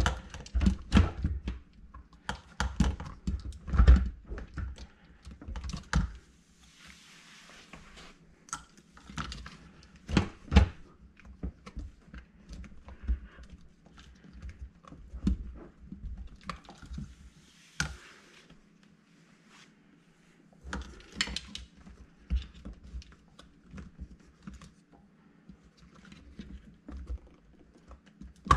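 Irregular clicks and knocks of plastic parts, wire connectors and hoses being handled inside a dishwasher's base while its new pump and motor assembly is fitted. The knocks come thickly in the first six seconds, thin out, pause briefly, and pick up again after about twenty seconds, with a couple of soft rustling hisses between.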